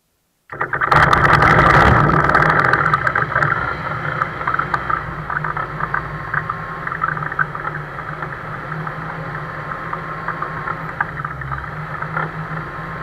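Eurostar EV-97 microlight's Rotax 912 flat-four engine starting: it catches suddenly about half a second in, runs loudest for the first couple of seconds, then settles to a steady idle.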